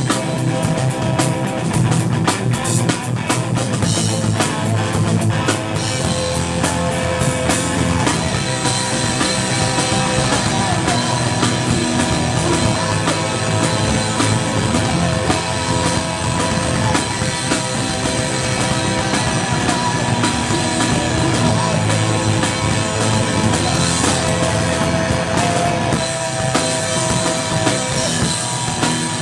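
Punk rock music: a band playing drum kit and guitar at a steady loudness.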